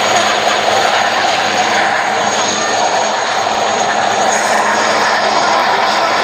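Military helicopter flying low past, its rotor and turbine engines running loud and steady, with a high steady turbine whine.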